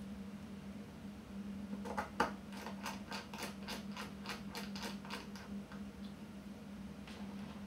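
A rapid run of small sharp clicks, about five a second for some three seconds starting about two seconds in, as fingers handle and press at the back of a compact camera body. A faint steady hum lies underneath.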